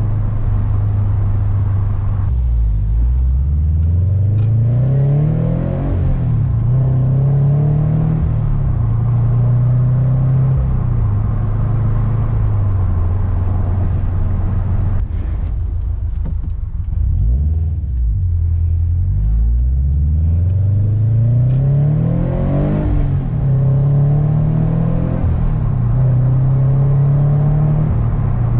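Flat-four engine of an FR-S/BRZ sports car under way. Its pitch climbs under acceleration from about two seconds in and drops suddenly at a gear change, then holds steady. Around the middle it falls away to a low drone, then climbs again with another upshift and settles to a steady cruise.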